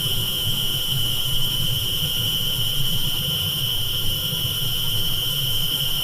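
Dental drill whining at a steady high pitch over a low rumble.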